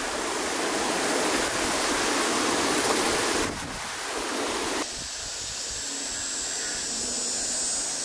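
Storm-surge floodwater rushing and churning out of a drainage culvert, a loud steady wash of water. About three and a half seconds in it drops away abruptly to a quieter steady outdoor background.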